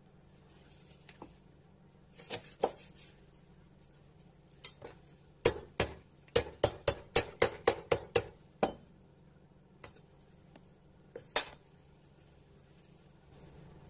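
A metal cleaver smashing a lemongrass stalk against a wooden cutting board to bruise it. A couple of knocks come first, then a quick run of about ten sharp knocks, then one last knock near the end.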